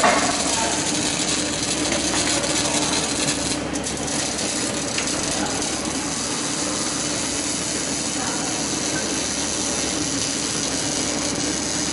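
Robotic wire-fed arc welder laying a weld bead on a steel scaffolding plank: a continuous, even crackle and sizzle of the welding arc over a steady low hum.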